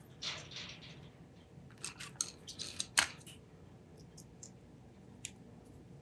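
Small machined metal parts and a fine hand tool clicking and clinking together as they are handled and fitted. A quick run of light clicks comes about two seconds in, the sharpest just after three seconds, followed by a few faint ticks.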